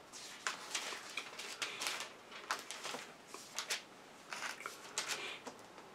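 Thin Bible pages rustling and flicking as they are turned, an uneven run of short crisp rustles that dies down near the end.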